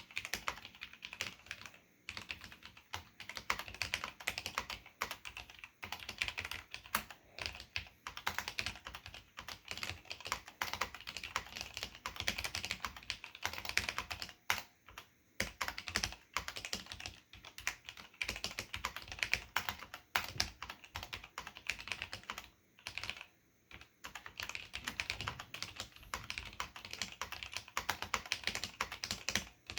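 Continuous typing on a mechanical keyboard with Cherry MX Black linear switches and ABS keycaps: fast runs of key clacks, broken by short pauses about 15 and 23 seconds in.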